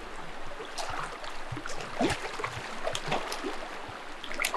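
A hooked trout thrashing and splashing at the surface of a flowing river, in short irregular splashes over the steady rush of the stream, with a sharper splash near the end.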